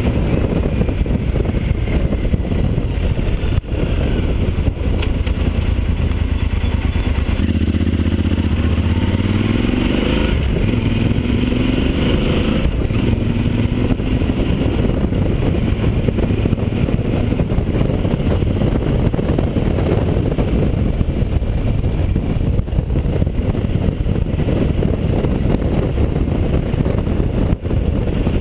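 Yamaha XT1200Z Super Ténéré's parallel-twin engine running under way, heard through an open-backed camera housing with a heavy low rumble. Between about eight and thirteen seconds in the engine note climbs several times as the bike accelerates.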